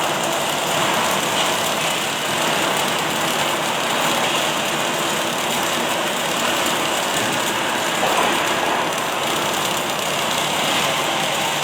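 Automatic arc welding machine running: a steady, dense crackle and hiss from the welding arc.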